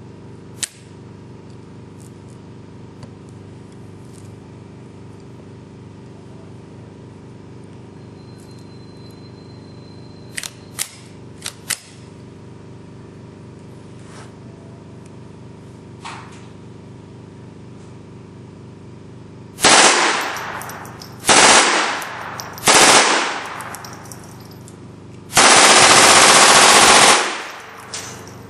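Half-scale Lakeside Machine miniature M1919A4 belt-fed machine gun firing .22LR on full auto: three short bursts about twenty seconds in, then one longer burst of about two seconds near the end, the loudest part. Before the firing, a few sharp metallic clicks as the gun's action is handled.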